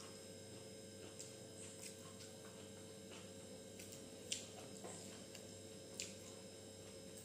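Quiet eating by hand from a steel plate: a few scattered soft clicks and taps as fingers mix and scoop rice against the plate, the sharpest about four seconds in, over a steady low electrical hum.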